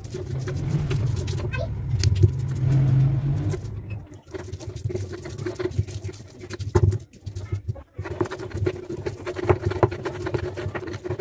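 Stone pestle grinding and crushing whole coriander seeds and fresh spice roots against a stone mortar, in repeated short gritty scrapes and crunches. A loud low rumble covers the first three seconds or so, then stops.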